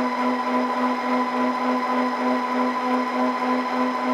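Twin electric motors and propellers of a radio-controlled plane running steadily at cruise, heard from the camera on board: a constant whine with a faint regular pulsing about four times a second, over rushing air.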